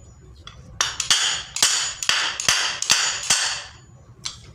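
Light metal-on-metal taps, roughly three a second, each ringing briefly, with a short pause near the end before one more. The taps are driving the newly fitted bearing home in a monoblock water pump motor, seating the end cover over it.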